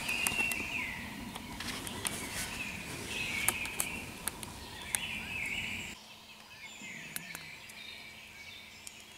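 A deer calling: four short calls a couple of seconds apart, the last one fainter.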